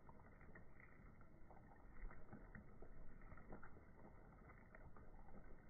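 Near silence: a faint, steady low hiss with scattered soft crackles.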